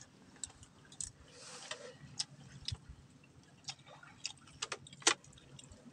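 Faint, scattered clicks and light taps of a meal being eaten by hand at a table: fingers, plates and utensils knocking lightly, with one sharper click near the end.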